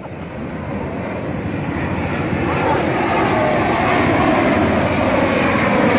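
Dassault Rafale fighter jet's twin turbofan engines on a low landing approach, growing steadily louder as it comes overhead, with a high whine strengthening over the last two seconds.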